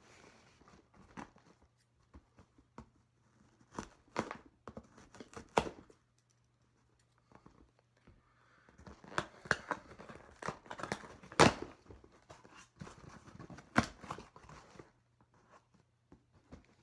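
Scissors cutting through the packing tape on a cardboard shipping box, with tape tearing and cardboard crinkling. It comes as an irregular string of scrapes and sharp snips, busiest and loudest in the second half.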